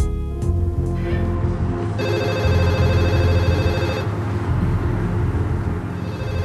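An electronic ringing tone that comes in about two seconds in, loudest for two seconds and then fainter, over a low steady hum.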